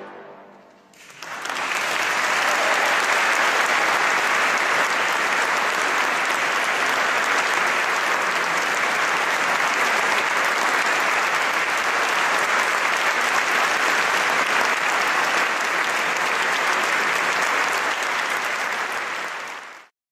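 The last chord of a trombone ensemble dies away in a reverberant church. About a second in, the audience starts applauding, a steady dense clapping that fades quickly and cuts off just before the end.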